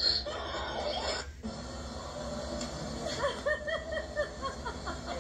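Audio from a TV playing a comedy clip: music and voices mixed together, with a quick run of short squeaky pitched sounds over the last two seconds.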